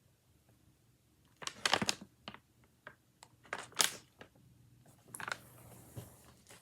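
Irregular sharp clicks and light knocks of items and packaging being handled while unpacking a cardboard shipping box, starting about a second and a half in and stopping shortly before the end.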